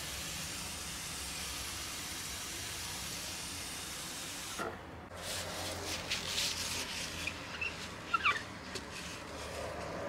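Water sprayer misting a terrarium in a steady hiss that cuts off about four and a half seconds in. A run of short spray bursts and small clicks follows, with one brief squeak.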